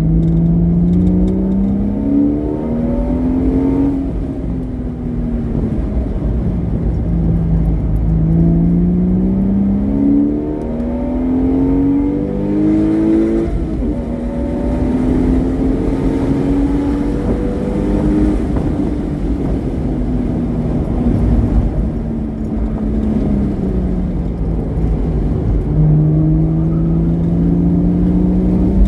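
Porsche Boxster S flat-six with a modified exhaust, driven hard. The pitch climbs in steps with short drops at each upshift, holds steady for a few seconds in the middle, sinks slowly as the car slows, then climbs again near the end.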